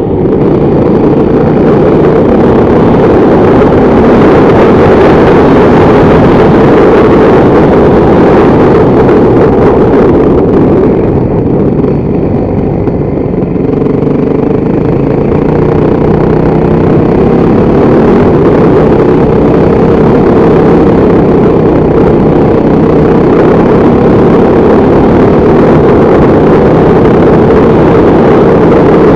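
Motorcycle engine running steadily under way, easing off briefly about a third of the way through before pulling again.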